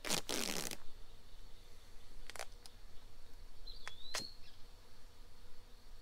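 A strip of tape ripped off the roll in one quick pull at the start, followed by a few light clicks and taps as it is pressed onto the wooden swarm box. A brief high chirp sounds near the middle.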